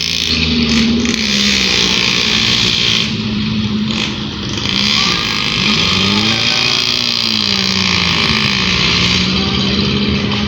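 A road vehicle's engine running loudly, its pitch sweeping down and back up in slow arcs over several seconds as the revs change.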